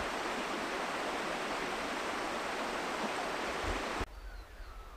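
A stream's water rushing steadily, cutting off suddenly about four seconds in to a quieter forest background with a few faint bird chirps.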